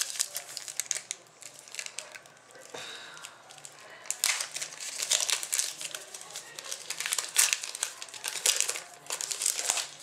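Crinkling and rustling of packaging as trading cards are handled and sorted, in irregular bursts with a few louder crackles about four, seven and nine seconds in.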